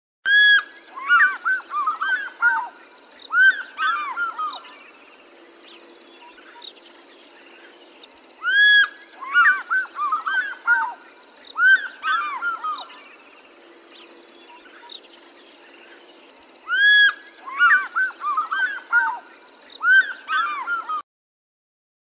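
African fish eagle calling: three bouts of its ringing call, each a long arched high note followed by a quick run of shorter yelping notes, over a faint steady background. The calling cuts off about a second before the end.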